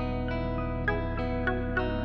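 Instrumental background music: a run of plucked notes over a steady, held bass.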